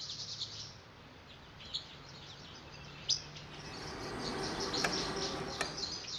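Small birds chirping in short, repeated high calls over a faint hiss that slowly grows louder through the second half, with a couple of light clicks near the end.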